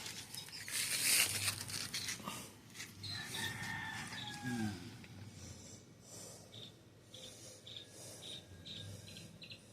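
A rooster crowing once in the background, a falling call about three seconds in, after a short rustling clatter in the first two seconds. Short high chirps then repeat about twice a second.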